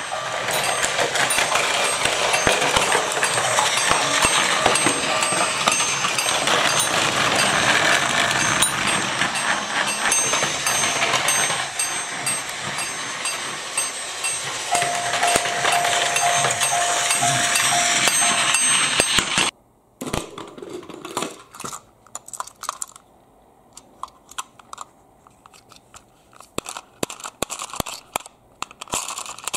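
Battery-powered Plarail toy trains running on plastic track: a steady motor whir with a dense rattle of wheels and cars clattering over the track joints, and a steady tone sounding for about four seconds partway through. About two-thirds of the way in the running stops abruptly, leaving only scattered small clicks of a plastic toy engine being handled.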